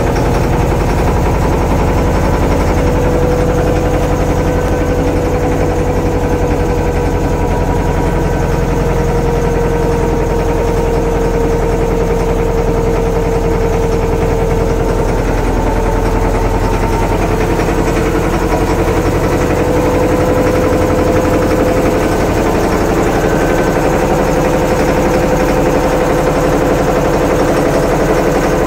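Inboard engine of a wooden river passenger boat running steadily under way: a loud, even low rumble with a steady hum on top whose pitch drifts only slightly.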